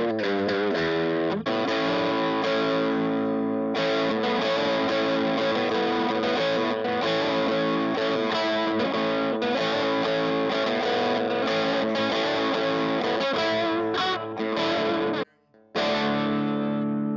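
Greco EG600 Les Paul Custom-style electric guitar played with distortion through an Orange amp, sustained ringing chords. Near the end the sound cuts out briefly and comes back as the guitar's volume control is worked, with no crackle from the pot.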